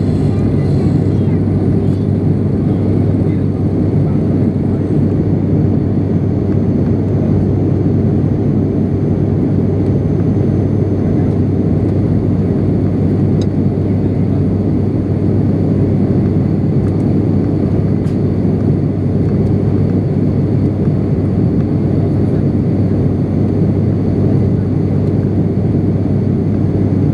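ATR 72-600 turboprop in flight, heard inside the cabin next to its Pratt & Whitney PW127 engine and propeller: a steady, loud drone with a strong low hum.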